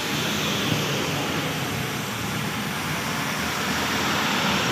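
Diesel light trucks passing close on a rain-soaked road: engine rumble with the hiss of tyres through surface water, steady throughout, over the rain.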